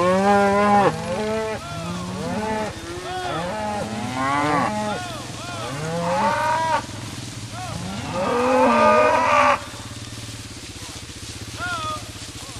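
A herd of beef cattle mooing, many overlapping calls from several animals at once. The calls are loudest at the start and again about eight to nine and a half seconds in, and die down to one short moo near the end.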